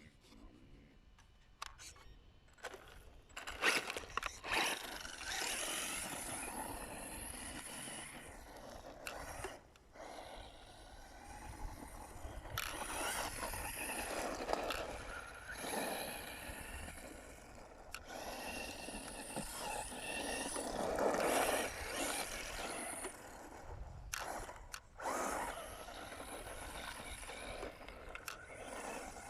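Quanum Vandal RC buggy driving on a dirt track: a high motor whine that rises and falls with the throttle over the scrabble and scrape of tyres on loose dirt, starting about three seconds in and dropping away briefly a few times.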